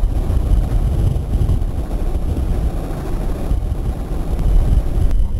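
Wind buffeting the microphone: a loud, low, fluttering rumble while dust blows across a dirt airstrip.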